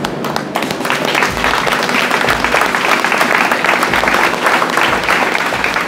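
A group of people applauding, many hands clapping, over background music.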